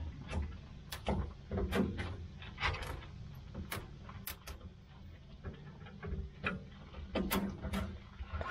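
A thin metal wire, an old CB antenna, being jabbed and scraped in the clogged grease drain of a Lang 84 Deluxe smoker's cook chamber: irregular sharp metallic clicks and scrapes, a dozen or so spread across several seconds.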